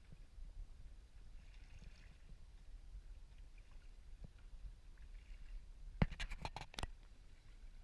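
Kayak paddling with soft swishes of the blade in the water, then a quick run of about six sharp knocks about six seconds in.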